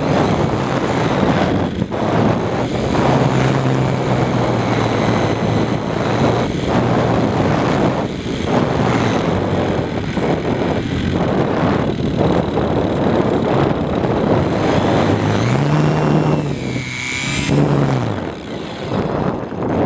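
Wind rushing over the microphone of an RC airplane's onboard camera, with the low hum of its propeller motor underneath. The hum rises in pitch about fifteen seconds in as the throttle opens, then falls away near the end.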